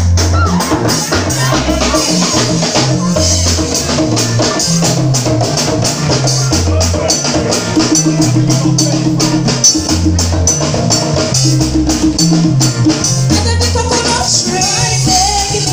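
Live band playing an upbeat dance groove: a stepping bass line over drums, with shaker and tambourine-like percussion keeping a steady beat.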